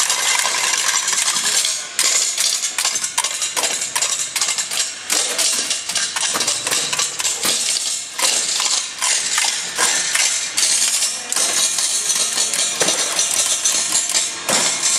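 Loud stage-show sound: a dense, irregular run of bangs and clatters over a steady noisy wash.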